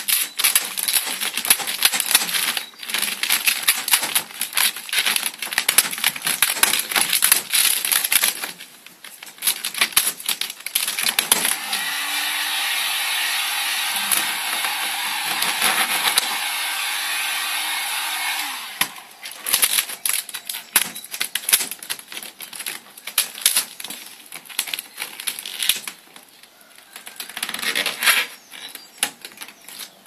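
Vinyl wrap film crackling and crinkling as it is pulled and stretched over a car door. In the middle a handheld heat gun runs steadily for about seven seconds, its motor whirring up at the start and winding down at the end, then the film crackles again.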